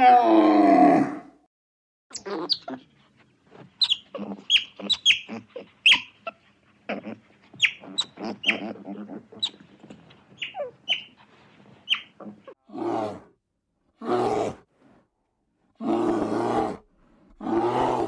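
Animal calls: a loud call falling in pitch at the start, then a string of short, sharp, high calls, then four hoarse, deeper calls about a second and a half apart near the end.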